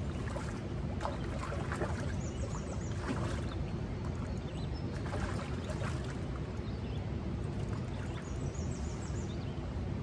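Steady rushing of a river's current, constant throughout, with a few faint short clicks or splashes.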